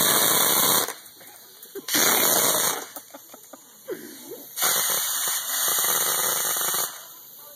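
Shop-made compressed-air pellet gun, an air-hose blow gun fed from a bottle of small pellets, firing in bursts of loud air hiss with a fast crackle running through it. Two short bursts of under a second each come first, then a longer one of about two seconds.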